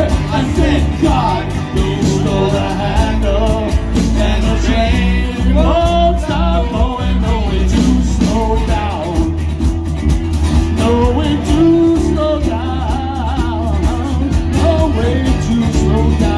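Live band playing a rock song: strummed acoustic guitar and electric bass under a bending melodic lead from harmonicas cupped to the microphones.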